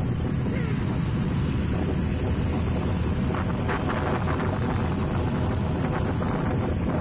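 Steady low rumble of wind buffeting the microphone on a moving motor scooter, mixed with the scooter's engine and tyre noise on the road.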